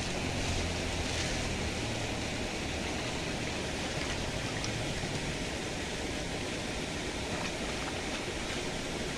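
Shallow stream water running steadily, a continuous rushing noise of flowing water.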